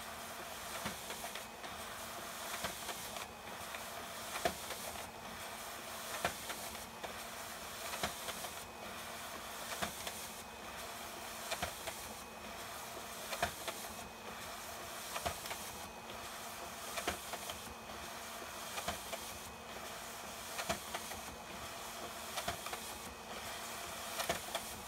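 HP ScanJet Pro 4500 fn1 document scanner's automatic document feeder running steadily, with a click roughly every two seconds as each sheet is pulled through for single-sided scanning.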